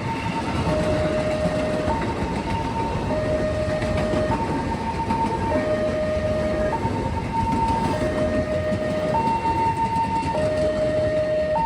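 Railway level-crossing warning siren sounding a two-tone hi-lo alarm, switching between a high and a low tone about every second and a quarter. Underneath runs the steady rumbling noise of a passing train.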